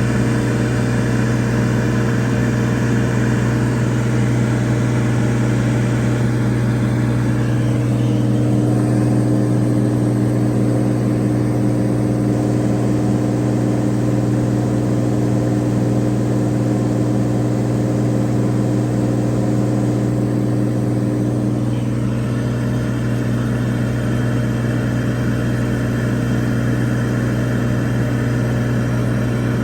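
Cirrus SR22's six-cylinder piston engine and propeller droning steadily, heard from inside the cabin. The tone shifts for a stretch in the middle: the hiss dulls and one low note stands out, then the sound returns to how it started.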